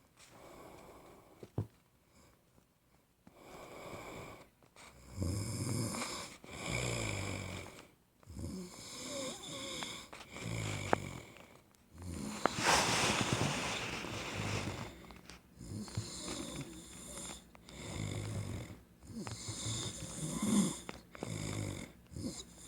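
A man snoring in his sleep: low snores on each breath, every two to three seconds, with one longer, louder breath a little past halfway.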